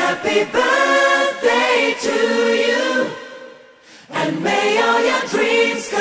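Soundtrack music: a choir of voices singing held, wordless-sounding phrases, breaking off briefly in the middle before the next phrase begins.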